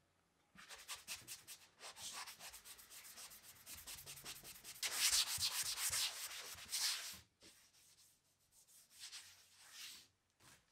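Paintbrush scrubbing exterior semi-gloss paint onto the camper trailer's wall panel in rapid back-and-forth strokes. The strokes are loudest in the middle, stop briefly, then come back in a shorter run near the end.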